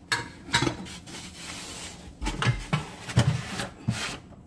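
Kitchen moulds and bottles clattering inside a plastic storage box as it is handled and slid into a cabinet shelf: a series of knocks, with a scraping rub between them.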